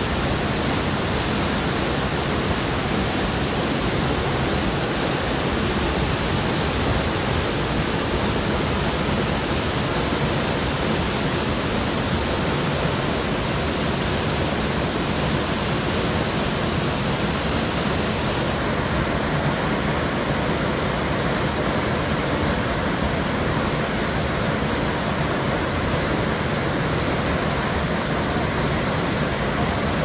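Horsetail Falls plunging into its pool: a steady, unbroken rush of falling water.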